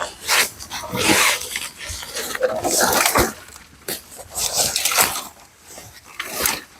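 Battery-powered mini chainsaw cutting through a hardwood branch, its chain working in uneven bursts as it bites into the wood.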